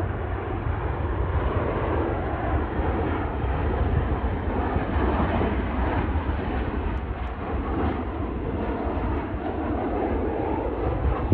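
Boeing 737 jetliner's engines on final approach as it descends to land: a steady jet roar with a heavy low rumble.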